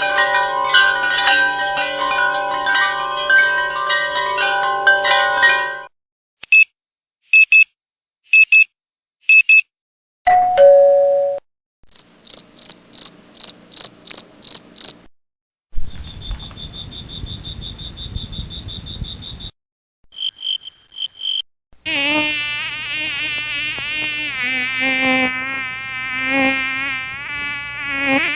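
A run of separate electronic sound effects, one after another: a held chord of tones, four short beeps, a two-note falling chime, a quick string of high pulsed beeps, a rough buzz with a steady high tone, a few fast beeps, and finally a wavering, warbling tone.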